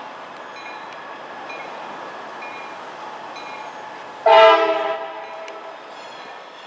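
Freight locomotive's air horn sounding one short blast about four seconds in, a chord of several tones that fades out over about a second. Underneath, a grade-crossing bell dings about once a second over the steady noise of the approaching train.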